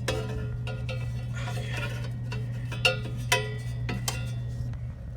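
A string of sharp metallic clinks and rattles, the two loudest about three seconds in, over a steady low electrical hum.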